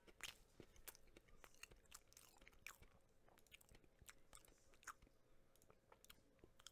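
Faint, close-miked chewing of a glazed chocolate cake donut stick: irregular soft mouth clicks and smacks, several a second.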